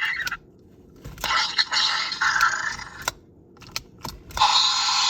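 Jurassic World Primal Pal Blue velociraptor toy playing its electronic screeching dinosaur sounds through a small speaker in three harsh bursts, with sharp plastic clicks of its moving parts in between.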